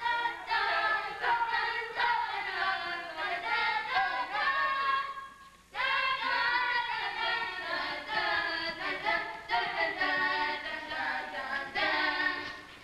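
Several voices singing together, the line breaking off briefly about five and a half seconds in before the singing resumes.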